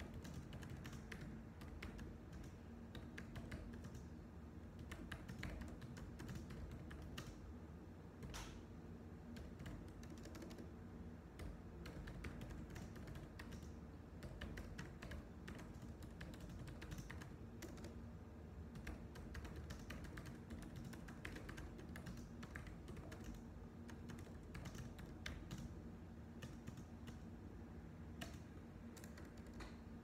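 Computer keyboard typing: a continuous run of key clicks at an uneven pace, over a steady low hum.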